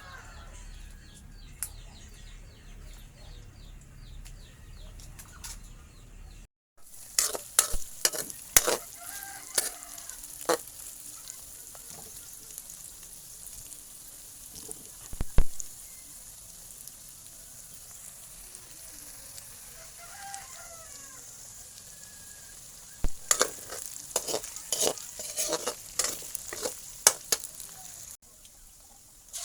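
Food sizzling in a frying pan, with a cooking utensil stirring and knocking against the pan in bursts. A rooster crows in the background.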